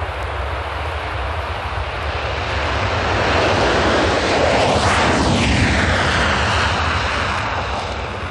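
Jet aircraft flying past: a rushing engine noise that swells to its loudest about five seconds in and then fades, with a sweeping change in tone as it passes.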